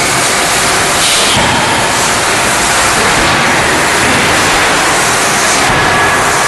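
Loud, steady rushing noise with no distinct hammer blows.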